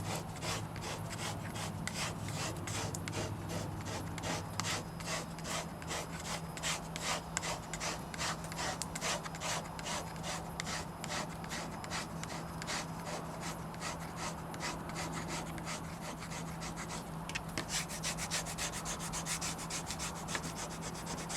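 Squeegee rubbing over the pre-mask of a vinyl window decal on glass, in many short strokes in quick succession, pressing the vinyl down onto the window.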